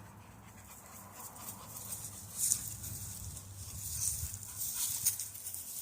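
Two pit bulls playing: scuffling and breathing noise, with sharper bursts about two and a half seconds in and again around four to five seconds.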